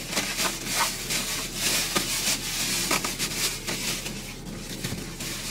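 Takeout bag being handled and opened, rustling continuously with many short crinkles.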